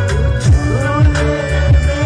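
Live worship band music with a keyboard and a steady drum beat: deep drum hits that drop in pitch, a little under two a second, over held bass notes, with a sliding melody line above.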